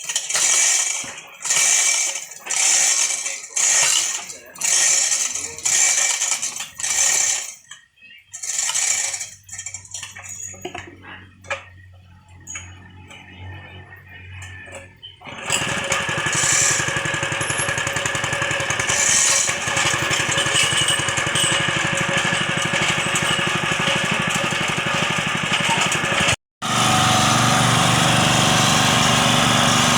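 Even strokes about once a second for the first nine seconds, then a small engine, likely the well-drilling machine's, comes in at about the halfway point and runs steadily, with a brief dropout near the end.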